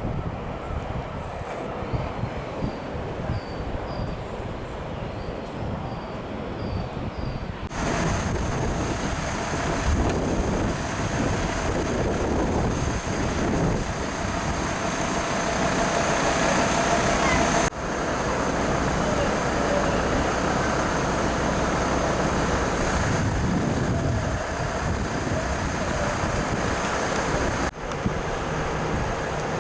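Rail and road traffic noise with wind on the microphone, changing abruptly three times.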